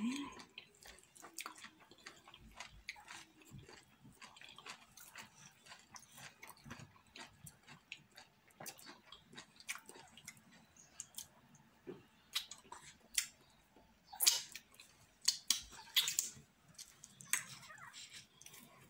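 Close-miked chewing and wet lip-smacking as fufu with slippery okro and ogbono soup is eaten by hand. Small irregular mouth clicks run throughout, with a few louder smacks past the middle.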